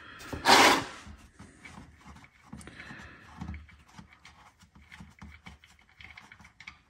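A brief loud rush of noise about half a second in, then faint scattered ticks and scrapes of an oil drain plug being spun out by hand from an ATV's engine case.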